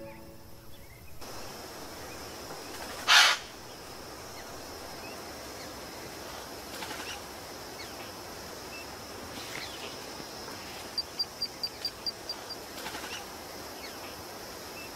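Rainforest ambience: a steady high insect hiss, with one loud, short sound about three seconds in and a fast run of about nine short, high ticks a little past the middle.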